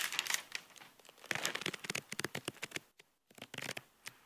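Paper crinkling and rustling in irregular bursts of short crackles as the wooden-backed solar panel is handled on a sheet of brown paper, with a brief pause near the middle.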